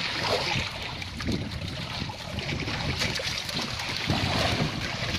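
Wind buffeting the microphone, with sea water lapping and splashing against the hull of a small outrigger boat.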